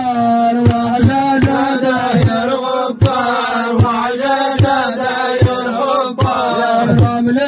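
Man singing a Bedouin mawwal into a microphone: a long, ornamented vocal line over a steady held low note, with a regular beat about every three-quarters of a second.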